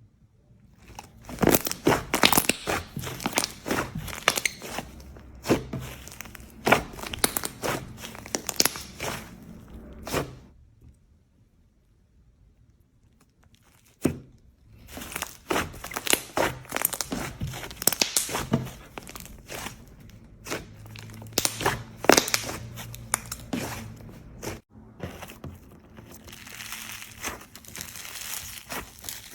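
Slime being squeezed and pressed by hand, giving dense crackling, popping and crunching sounds. There is a pause of about three seconds starting about ten seconds in, then the crackling resumes.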